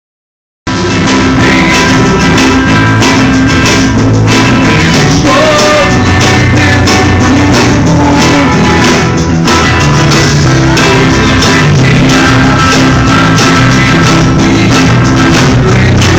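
Loud band music with a steady drum beat, starting abruptly about half a second in.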